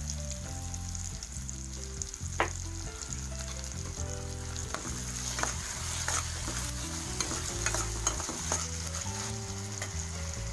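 Chopped vegetables sizzling in hot oil in a pan while being stirred with a metal spatula, with scattered clicks and scrapes of the spatula against the pan. The sharpest click comes a couple of seconds in.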